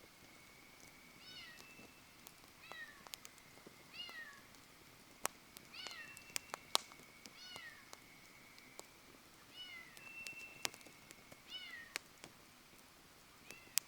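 Wood fire crackling with scattered sharp pops. A short, falling, mew-like animal call repeats about nine times over it, roughly every second or so. A thin, steady high whistle comes and goes in the background.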